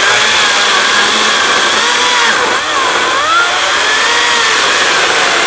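Echo 58V battery-powered chainsaw cutting through a thick log, its motor whine dipping and rising as it bogs under the load. The power seems to fluctuate during the cut.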